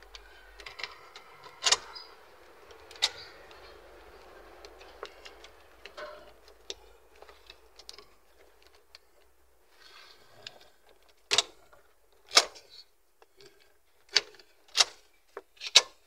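A freshly cut key being worked in a Lexus RX300's ignition lock cylinder, with small metallic clicks and key rattles, then five sharp clicks in the last five seconds as the key is turned in the lock. The key, cut by key code, is being tried in the ignition to check that it turns.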